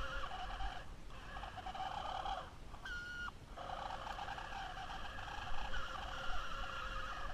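Electric drive motor and gears of a 1980s New Bright remote-control toy car whirring as it drives. It cuts out briefly about a second in, then again near the middle, where a single higher whine is heard before the whirring resumes.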